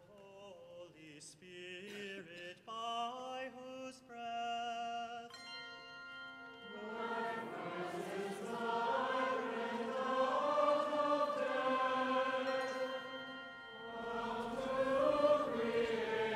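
A single voice chanting a slow sung melody with long held notes, joined about seven seconds in by many voices singing together as a choir and congregation.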